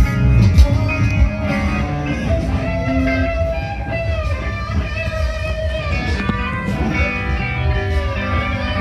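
Live band playing, led by a guitar melody with bass underneath.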